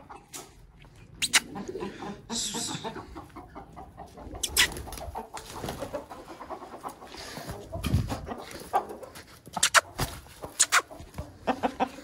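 A rooster clucking as it is chased and caught by hand, with scattered sharp knocks and scuffles from footsteps and handling that come thickest near the end, as it is caught.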